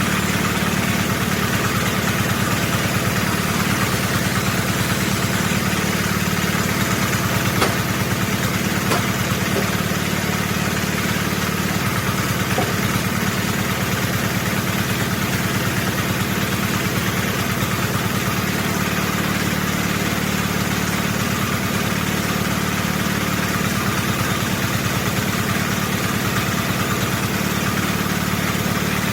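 An engine running steadily at an even speed, with no rise or fall in pitch, and a couple of faint knocks about eight seconds in.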